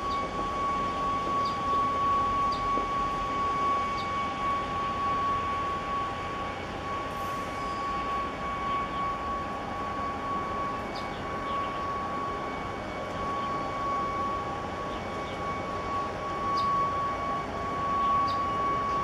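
A steady, unchanging high whine with a fainter overtone, over a constant background hiss; a few faint short chirps come and go.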